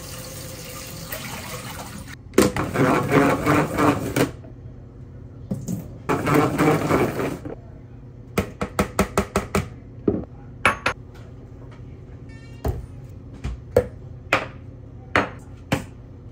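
Tap water running over lettuce in a plastic salad spinner, then two louder stretches of rushing and sloshing water as the spinner bowl is filled and tipped out into a steel sink. After that come a quick run of plastic clicks and clatter, and single knocks of bottles and a glass bowl set down on a stone counter.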